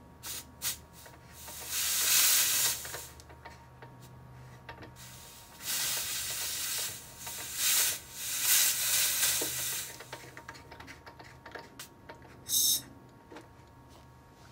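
Compressed air hissing out of an air filter-regulator's outlet fitting in several bursts, each a second or more long, then one brief burst near the end, as the outlet is pressed open to test the regulator.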